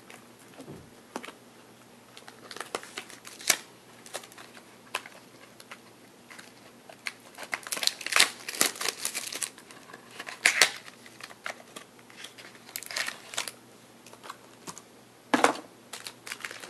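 Plastic shrink-wrap being torn off a sealed box of trading cards and crumpled, in irregular crackling bursts, busiest about eight to ten seconds in and again near the end.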